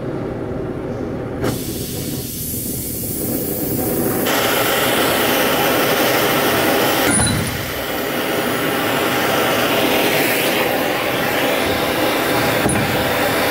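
Gas torch flame hissing steadily while it heats a steel gear coupling hub, growing louder in steps over the first few seconds.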